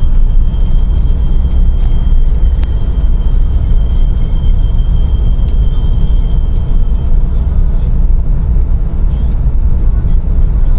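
Hyundai Tiburon's 2.0 G4GC inline-four engine running with a deep rumble and a steady high-pitched whistle from under the hood, which fades out about seven seconds in. It is an unexplained whistle that appears only between about 2000 and 3000 rpm and follows engine speed and throttle.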